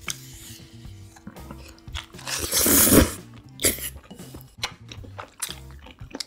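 Close-miked eating: chewing and sharp clicks of utensils on dishes, with one loud noisy burst lasting under a second about two and a half seconds in, over soft background music.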